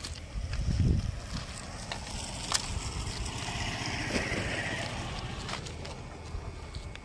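Wind rumbling on the microphone, with a strong gust about a second in and a single sharp click in the middle.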